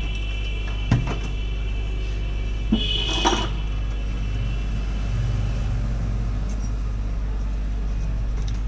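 Hot-air rework station blowing steadily with a low even hum while it heats the phone's charging connector to desolder it, with a few light clicks of tools against the board in the first few seconds.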